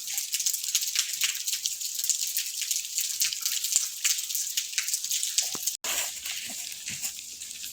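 Falling water splashing and dripping in a dense spatter of drops; about six seconds in it breaks off and goes on more quietly.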